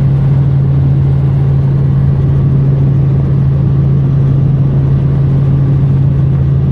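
Helicopter in flight: a loud, steady drone with a strong low hum that does not change.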